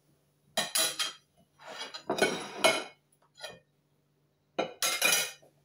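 A serving utensil scraping and clinking against china dinner plates as food is dished up, in four short bursts over a faint steady low hum.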